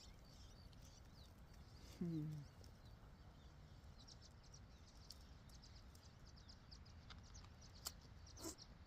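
Quiet open-air background with faint, high, short bird chirps throughout. A brief low voice-like murmur falling in pitch comes about two seconds in, and a couple of soft clicks come near the end.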